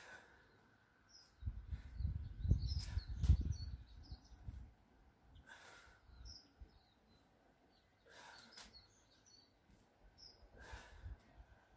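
Small birds chirping now and then, with a loud, uneven low rumble from about one and a half to four and a half seconds in, and a few faint thuds after it.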